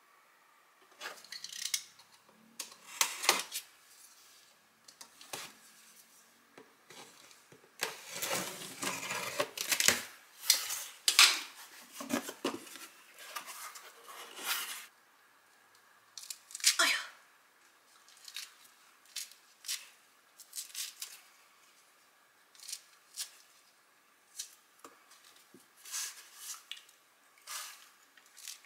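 Cardboard box of tangerines being opened and handled: a string of rustling, tearing noises that is densest around the middle. Later come softer scattered rustles and ticks as the fruit is handled and one tangerine is peeled.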